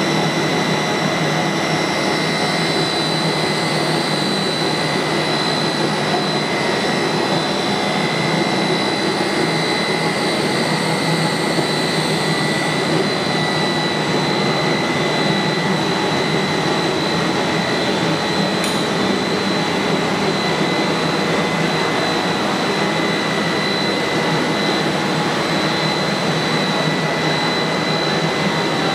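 A 52 mm co-rotating twin-screw extruder compounding line running steadily: an even mechanical noise with a constant high whine at two pitches.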